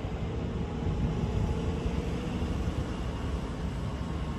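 Steady low rumble of a VR Sr3 electric locomotive approaching in the distance, with a faint steady hum and wind on the microphone.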